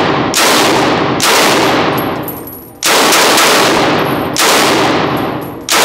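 Semi-automatic Bren Mark I light machine gun firing .303 rounds one at a time: five shots a second to a second and a half apart, each with a heavy ka-chunk and a long echo that rings on through the indoor range.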